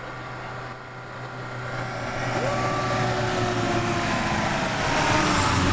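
Mercedes-Benz Sprinter van driving up the road and passing close by, its engine and tyre noise growing steadily louder as it approaches.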